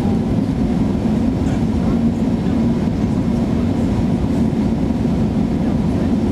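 Steady low cabin rumble of an Airbus A380 on its descent to land, heard inside the cabin beside the wing: noise of its Rolls-Royce Trent 900 engines and the rushing air, with a faint steady drone underneath.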